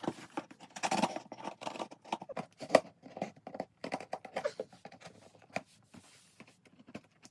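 Packaging being handled and opened by hand: irregular rustling, crinkling and scraping with many small clicks, and one sharper click a little under three seconds in.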